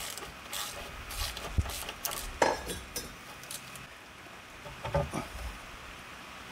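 Metal tools clinking and knocking against a Johnson 40 HP outboard's lower-unit gearcase as its bolts are worked loose and the housing is handled. There are a few irregular clinks, the sharpest about two and a half seconds in and a couple more knocks near five seconds.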